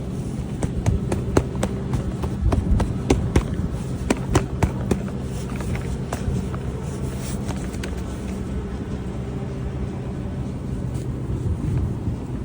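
Steady low vehicle-like hum, with a run of sharp irregular clicks and knocks over the first few seconds.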